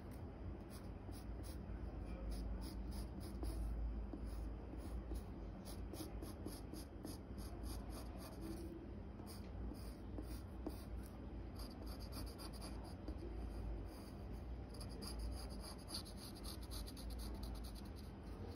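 Graphite pencil scratching on paper in many short, quick strokes as a drawing's outline is gone over and darkened; the strokes run more continuously near the end.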